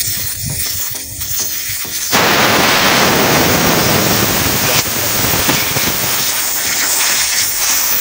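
Compressed air escaping from a converted freon cylinder through its tire-type valve once the valve core is unscrewed. A sudden loud hiss begins about two seconds in and then slowly weakens as the tank empties.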